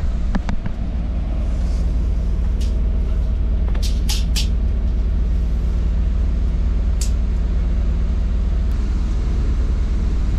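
Refrigerated truck running, a steady low drone, with a few short clicks and scrapes over it.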